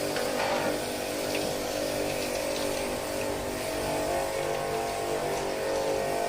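A motor-driven machine running steadily: a constant hum with a few held tones over a noisy rush, without change in speed.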